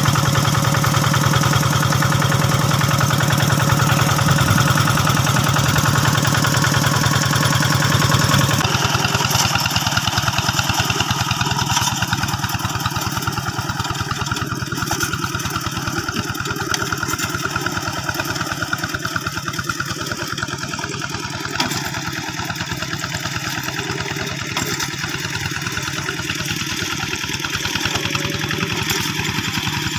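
Old diesel engine of a two-wheel hand tractor running steadily with a rapid, even chugging. Its tone changes abruptly about eight seconds in.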